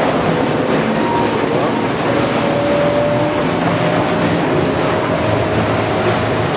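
Motorboat engine running steadily with water rushing and splashing past the hull, heard from aboard a Venetian water bus, with wind on the microphone. A thin engine whine rises slightly in pitch from about two seconds in.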